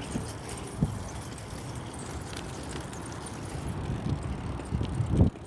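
Low rumbling outdoor noise on a handheld phone microphone, with a sharp bump about a second in and a louder bump near the end, typical of handling and wind on the mic while walking.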